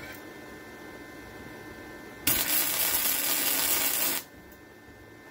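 Stick welding arc on steel: a loud, noisy burst of arc sound lasting about two seconds. It starts a little after two seconds in and cuts off abruptly, over a steady hum.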